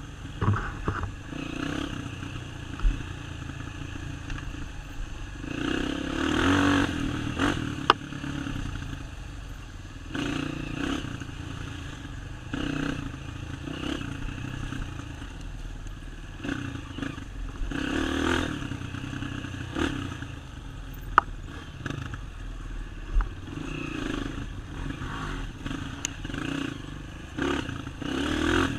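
Off-road motocross bike being ridden along a dirt trail, its engine revving up and dropping back every few seconds, with clattering and a few sharp knocks as the bike goes over rough ground.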